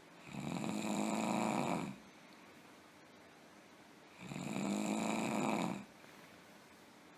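A person snoring heavily: two long snores, each about a second and a half long and about four seconds apart, with quiet gaps between them.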